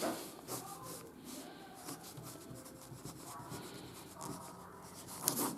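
Faint scratching of a pencil sketching out a plan, with a few light knocks, the loudest near the end.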